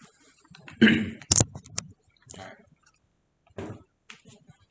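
Handling noise from an M16A2 training rifle: a single sharp, loud click about a second and a half in, among softer short knocks and rustles.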